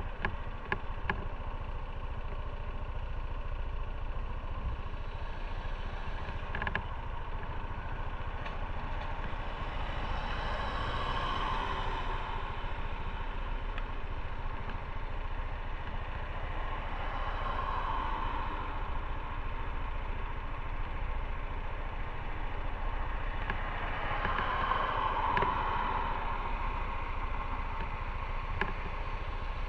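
Motorcycle engine idling steadily while stopped, with three louder swells of noise that rise and fade.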